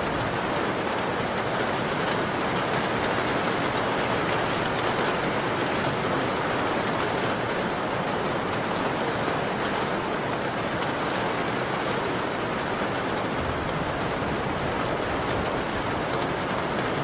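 Steady rain falling: an even, unbroken hiss with faint scattered ticks of drops.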